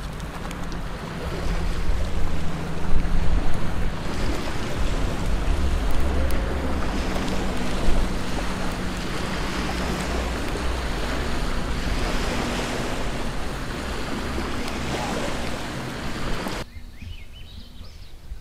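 Wind buffeting the microphone: a loud, gusting rush with a heavy low rumble, which cuts off abruptly near the end.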